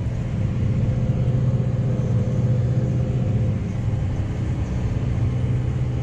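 Tractor engine running at a steady speed while pulling a seed drill combination slowly across ploughed ground, a constant low hum with no change in pitch.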